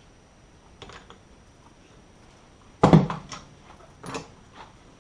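Knocks and clatter of coilover parts being handled: a few light clicks, then one sharp knock with a brief low ring just before the middle, followed by smaller clacks.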